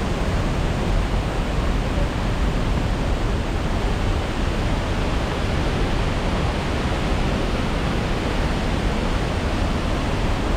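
Steady rushing of a stream or waterfall in a rocky gorge, an even roar of water with no break.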